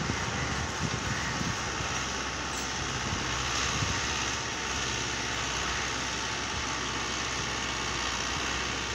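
Euro Ford 5880 tractor's diesel engine running steadily under load, pulling a deep cultivator set fully down through the soil.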